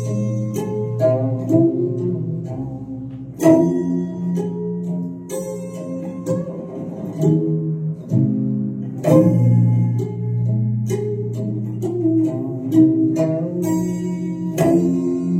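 Instrumental music led by a plucked string instrument, with notes plucked and left ringing and a sharp struck accent every few seconds.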